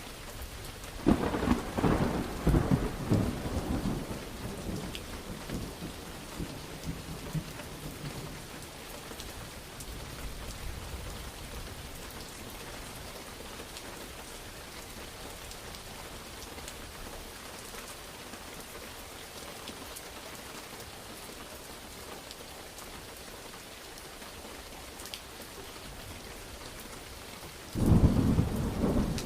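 Steady heavy rain hissing, with a sharp thunderclap about a second in that rumbles on for several seconds and dies away, and another sudden clap of thunder near the end.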